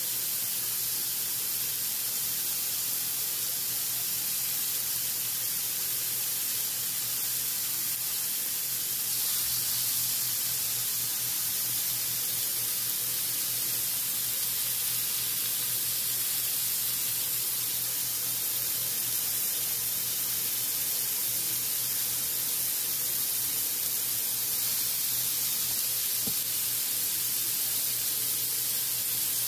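Raw ground-beef hamburger steak patties sizzling steadily on a hot griddle, a continuous even hiss, with a faint steady low hum underneath.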